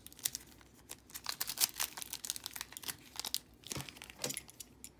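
Crinkling and tearing of a trading card pack wrapper being pulled open by hand, in irregular crackles; the packs are hard to open.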